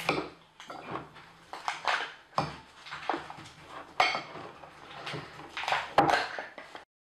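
Metal spoon stirring thick slime in a glass bowl: irregular scraping and clinking strokes, with two sharper clinks about four and six seconds in.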